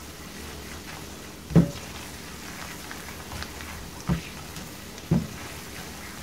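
Flour-and-oil roux with onion slices bubbling and sizzling steadily in a frying pan as it browns, stirred with a silicone spoon. Three short knocks, about one and a half, four and five seconds in, as the spoon strikes the pan.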